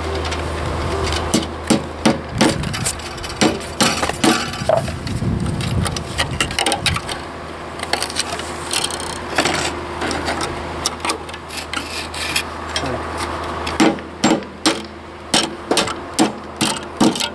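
Irregular hammer knocks and metal clinks at the foot of a column formwork box as the steel bracing wire is fixed, with a run of sharp knocks in the last few seconds. A low steady hum sits underneath early on and fades.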